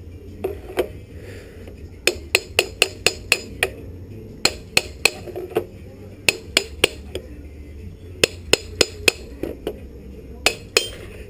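Hammer tapping on a motorcycle exhaust, in short runs of quick sharp metal strikes, about three to four a second, with brief pauses between runs, to work the dented part back into place little by little.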